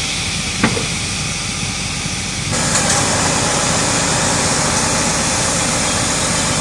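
Steady hiss of a fire hose spraying water onto a burnt-out pickup truck, with an engine running steadily underneath. A single short knock comes just under a second in, and about two and a half seconds in the hiss jumps louder and brighter.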